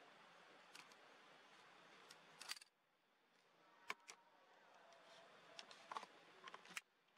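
Near silence: faint hiss with a few scattered soft clicks, the hiss cutting out abruptly twice.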